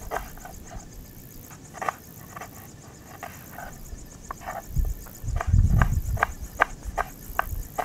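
Kitchen knife chopping onion on a wooden board, a steady run of sharp knocks about two to three a second, quickening near the end. A steady high chirring of insects sits behind it, with a low rumble that swells about five seconds in.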